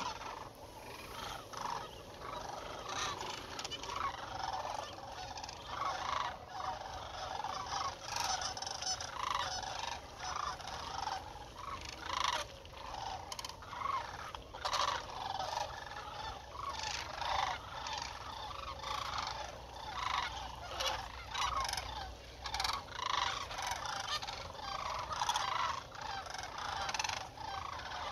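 A large flock of sandhill cranes calling, their rolling bugle calls overlapping without a break.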